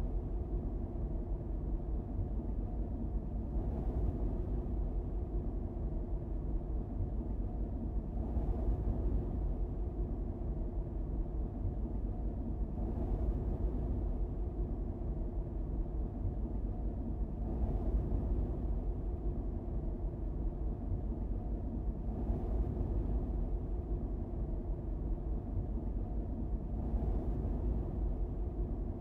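Steady low rumble of a car driving along a paved road, engine and tyre noise, with a faint swell about every four and a half seconds.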